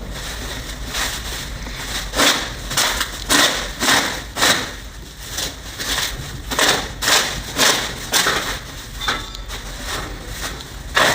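Construction work on a toilet: a workman's tool striking or scraping in repeated short, harsh strokes, irregularly about two a second.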